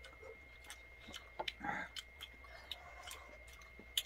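Faint chewing while eating braised chicken, with scattered small clicks of chopsticks against plastic food containers.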